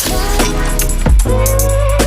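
Background music with a heavy bass beat and a held melody line.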